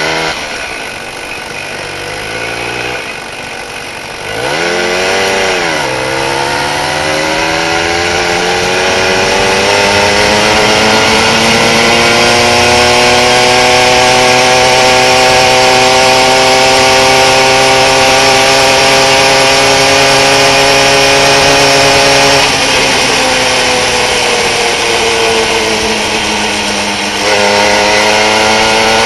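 A 1979 Tomos Bullet A3 moped's 49 cc two-stroke single running ear-damagingly loud at wide throttle. It revs up and falls back about five seconds in, then its pitch climbs steadily as the moped gathers speed. The pitch drops briefly a little after twenty seconds in and climbs again near the end.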